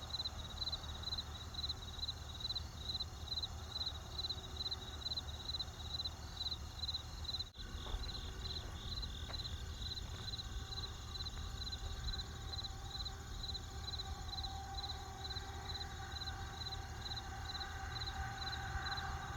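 Crickets chirping in an even, steady rhythm, about two or three chirps a second, over a low rumbling background. About seven and a half seconds in the sound drops out for an instant.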